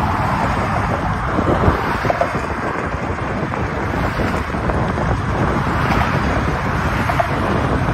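Wind buffeting the phone's microphone, over the steady noise of car and bus traffic driving past on the bridge roadway.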